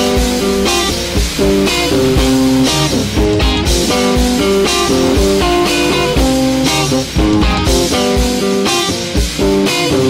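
Band music: guitar playing a melody over a steady beat of drums and bass.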